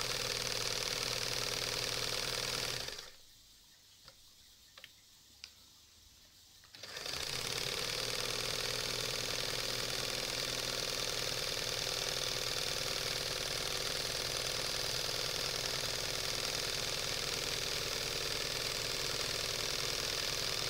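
Singer 320K sewing machine running steadily while stitching zigzag seams through a thick leather-like sheet. It stops about three seconds in. A few faint clicks follow in the pause, then it starts up again about seven seconds in and runs on.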